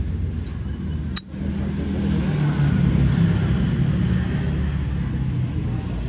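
A motor vehicle's engine running, a low steady rumble that shifts slightly in pitch, with one sharp click a little over a second in.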